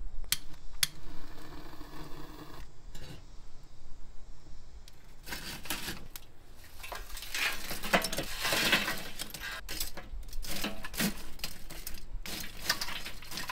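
Lit charcoal tipped out of a metal chimney starter into a charcoal grill, the coals clattering and tinkling as they spill. This is followed near the end by scattered clicks and scrapes of metal tongs pushing the hot coals around.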